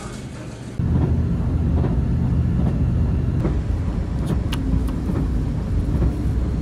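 Steady low rumble of a diesel express train running, heard from inside the passenger carriage. It starts abruptly about a second in, after a quieter stretch.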